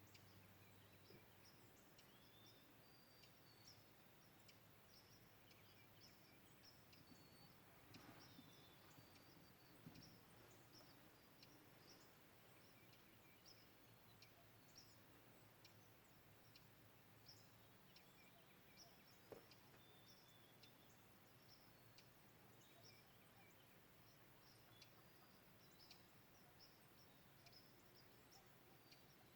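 Faint outdoor dawn chorus: many small birds giving short high chirps and whistles throughout. A low, steady hum runs beneath them and weakens a little past halfway.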